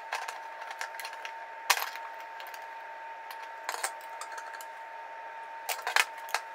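Small metallic clicks and clinks of a crescent wrench and hex driver working M3 hex nuts and screws on a carbon-fibre drone frame, a handful of them spread a second or two apart, the sharpest about a second and a half in. A faint steady tone runs underneath.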